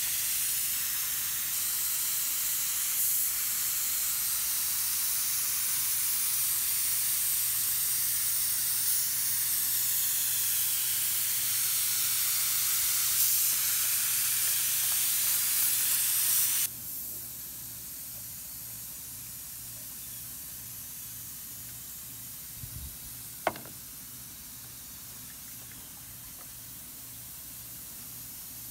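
Compressed-air siphon-cup paint spray gun hissing steadily while spraying. The hiss stops abruptly about two-thirds of the way through, leaving a quieter steady hiss with one sharp click near the end.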